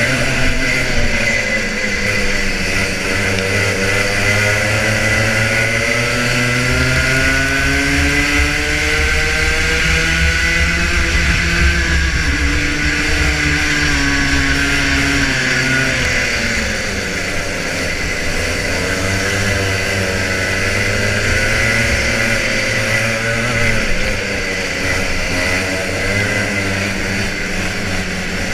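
Rotax Junior Max 125cc two-stroke kart engine racing, its revs repeatedly climbing and dropping as the kart accelerates out of corners and brakes into them.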